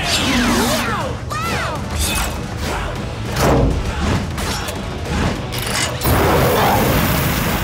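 Background music with cartoon sound effects: sweeping whooshes, mechanical clunks and booms as an animated motorcycle transforms. A steady rushing hiss starts about six seconds in, as its rocket thruster fires.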